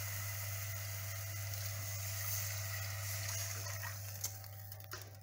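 Cold milk hissing and sizzling as it pours into a hot pan of butter-and-flour roux and spills over onto the hob, a steady hiss over a low hum that fades away near the end.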